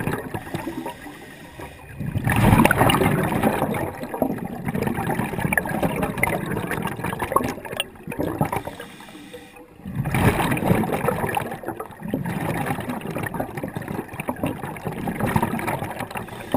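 Scuba diver's exhaled bubbles gurgling and rushing from the regulator underwater, in two long surges that start about two seconds in and again about ten seconds in.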